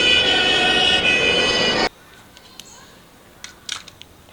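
Siren sound from a fire rescue vehicle, a steady multi-tone wail that cuts off suddenly about two seconds in. A few faint clicks follow.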